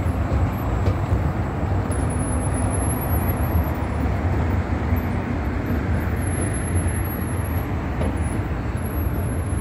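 Steady road traffic from a multi-lane boulevard: a continuous low rumble and tyre rush of passing cars.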